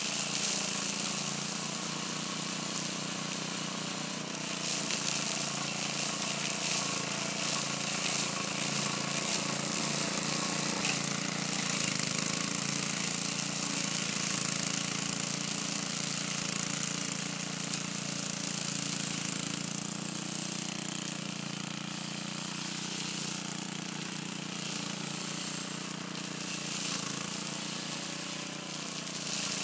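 Small engine of a walk-behind rotary mower running steadily while cutting tall grass, a fast even pulsing hum. It grows a little louder a few seconds in and eases off again past the middle.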